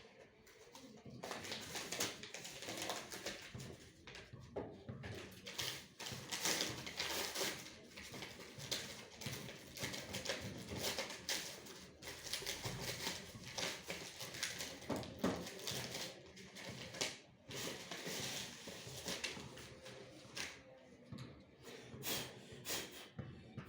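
Irregular clicking, tapping and rattling of printer parts being handled and worked on by hand.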